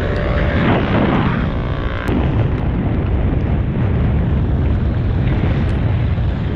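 Heavy wind buffeting on an action camera's microphone as a bicycle speeds downhill, a dense low rumble throughout. A brief whine falls in pitch about a second in.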